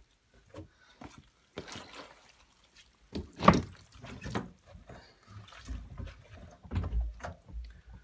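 Sodden cloth nappies being lifted and handled over a plastic crate: wet fabric squelching and water dripping and splashing in irregular bursts, the loudest splat about three and a half seconds in.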